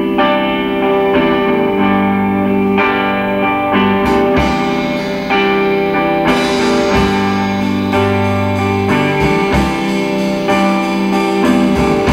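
Live indie rock trio playing: strummed electric guitar over bass guitar and drums, with cymbals getting brighter about six seconds in.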